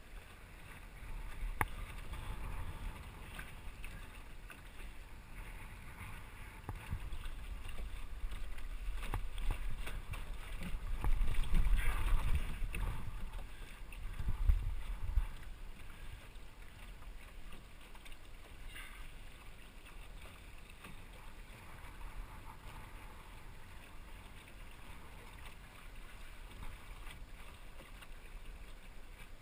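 Wind buffeting the microphone in gusts, strongest about ten to fifteen seconds in, over the wash of water along a small sailboat's hull as it sails.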